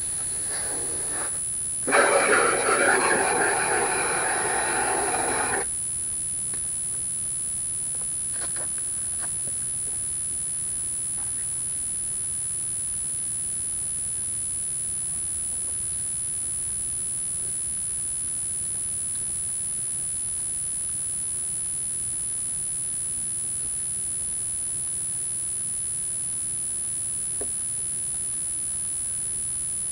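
Garden hose spraying water onto a car's body for about three and a half seconds, then cutting off sharply. After that only a faint steady background remains, with a thin constant high-pitched tone.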